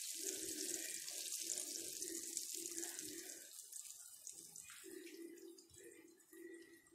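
Falafel patties (ta'meya) sizzling as they deep-fry in hot oil in a pan, the sizzle fading over the seconds. A low cooing repeats in the background.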